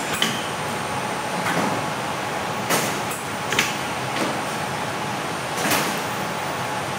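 Steady hum of a mochi-dough sheeting machine and its conveyor. About six sharp metallic clanks and sliding knocks fall at uneven intervals, as the metal trays are handled.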